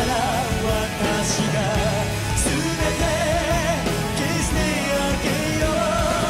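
Live concert recording of a male J-rock singer singing long held notes with vibrato over a rock band's accompaniment of bass and drums.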